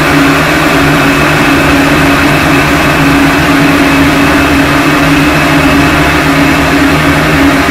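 Harsh noise music: a loud, unchanging wall of distorted noise with a steady low drone running through it, without rhythm or melody.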